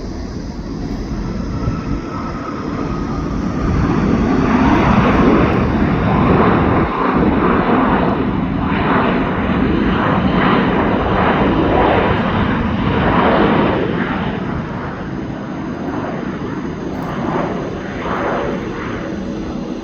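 Jet airliner's engines rising to a loud rumble as the plane passes close by, then slowly easing off.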